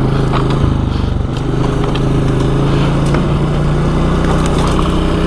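ATV engine running steadily at low, even revs while the quad rolls slowly downhill on a rough trail, with a few faint knocks over it.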